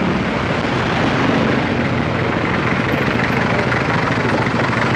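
Steady road and wind noise from a moving motorcycle ride, with a low, even engine drone underneath.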